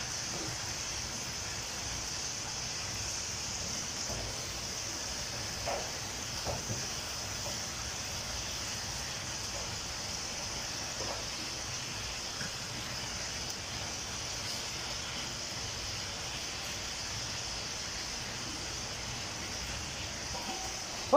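Steady hiss of food sizzling in pans on a gas stove, with a few faint knocks of a utensil against the cookware.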